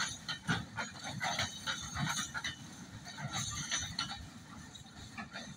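Container freight wagons rolling past, their wheels and couplings clanking and rattling in an irregular run of knocks. The brake van at the tail goes by and the sound eases off near the end.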